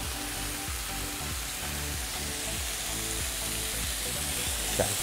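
Chicken and pepper shish tawook skewers sizzling steadily as they fry in a frying pan.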